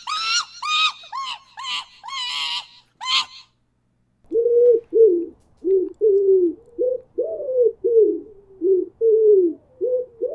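Capuchin monkey screeching in rapid, high-pitched, squealing calls for about three seconds. After a short pause, an unidentified animal gives a quick run of low hooting calls, a little over two a second, some of them falling in pitch.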